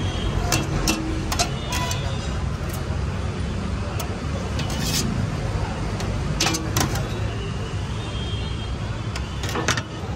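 Two metal spatulas chopping and scraping paneer on a steel tray: irregular sharp clinks and scrapes, about ten in all, over a steady low hum of road traffic.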